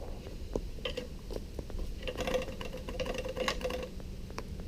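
Light, irregular mechanical clicks and rattles from a broken air compressor's motor being worked on by hand, over a faint steady hum. A thin steady tone runs through the middle of the stretch.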